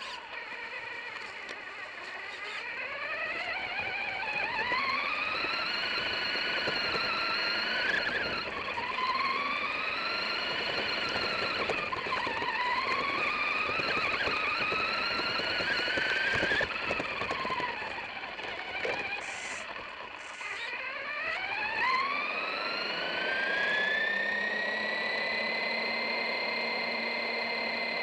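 RC truck's electric drive motor whining, its pitch rising and falling again and again with the throttle. About 22 seconds in it climbs and then holds a steady high whine.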